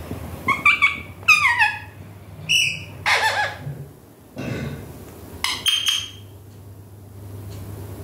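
Indian ringneck parakeet calling: a string of short squawks and chirps, several falling in pitch, with the loudest a harsh screech about three seconds in. A steady low hum runs underneath.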